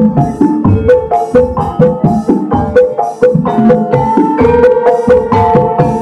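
Javanese gamelan ensemble playing: metallophones strike a quick, steady run of ringing notes over drum strokes.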